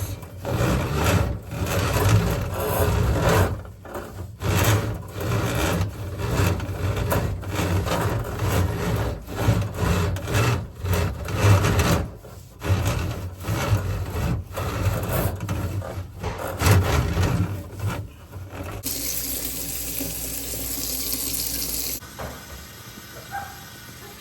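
Water running into a drain to test it after a grease stoppage has been cleared. For most of it there is choppy, stop-start rubbing and knocking noise; about three-quarters of the way in it gives way to a steady rush of running water, which then drops away.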